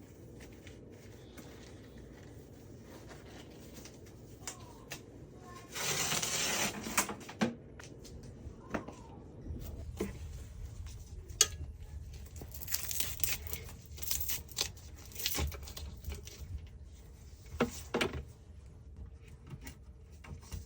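Objects being handled at close range: scattered clicks and knocks, with a loud rustling, tearing-like burst about six seconds in and several shorter rustles later on.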